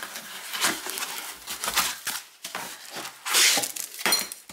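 Packaging being handled: a cardboard box and its foam insert scraping, then the glass tumbler pulled out in its plastic wrap, rustling. The rustle is loudest about three seconds in.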